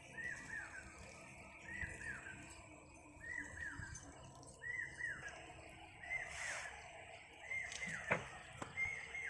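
An animal calling over and over: a short pair of high falling notes about every second and a half, with a sharp click near the end.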